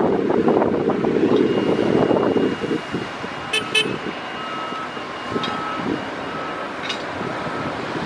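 Construction-site noise during a concrete pour: a loud low rumble, from the concrete pump and machinery, that eases after about two and a half seconds, a few sharp metallic clinks midway, and a short high beep repeating about once a second in the second half.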